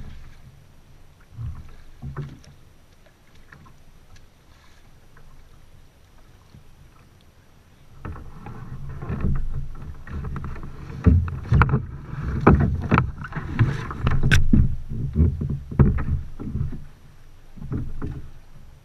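Sea kayak being paddled: irregular splashes and knocks from the paddle in the water and against the hull. Sparse and quiet for the first several seconds, then busier and louder from about eight seconds in, over a low rumble.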